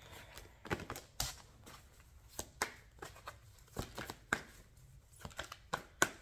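Tarot deck being shuffled by hand, the cards giving a run of irregular light snaps and flicks as they are cut and slid against each other.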